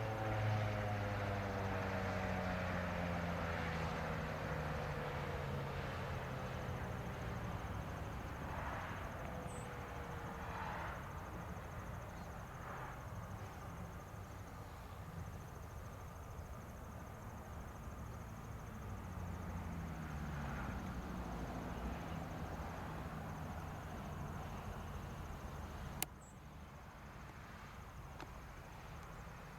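Federal Signal 2001-130 rotating electromechanical siren winding down after its test: its tone slides slowly downward and fades, with a low falling tone still audible until about twenty seconds in. A single sharp click about twenty-six seconds in.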